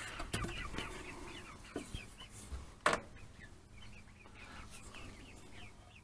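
Chickens clucking and calling in the coop, a steady run of short falling calls, with a few sharp knocks, the loudest about three seconds in.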